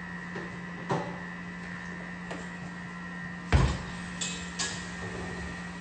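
Kitchenware being handled: a few light knocks and clicks, with one louder thump about three and a half seconds in, over a steady electrical hum.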